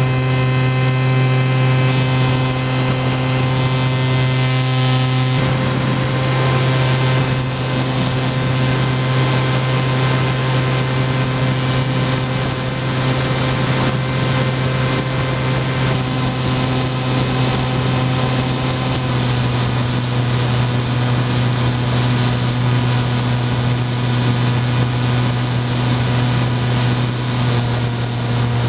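Electric motor and propeller of an RC FPV model plane in flight, a loud steady hum with a constant pitch that drops slightly about two-thirds of the way through.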